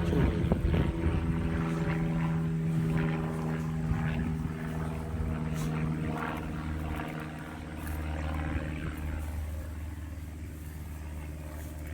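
Cat purring loudly and steadily, a low rumbling drone that sounds like a small motor, easing slightly in loudness toward the end.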